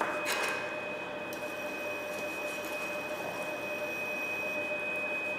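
Kitchen ventilation fan running with a steady hum and a high whine, over the hiss of a pan simmering. One light knock sounds just after the start.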